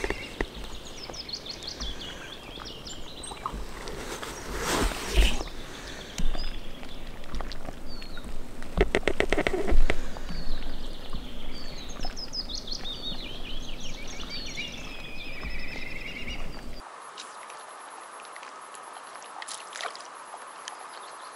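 Songbirds singing by the lakeside: repeated warbling phrases and trills, one phrase ending in a falling trill, with two louder bursts of noise about five and nine seconds in. Near the end the birdsong gives way to a quieter stretch with a faint steady hum.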